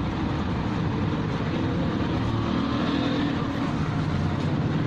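Steady low background rumble with no clear rise or fall.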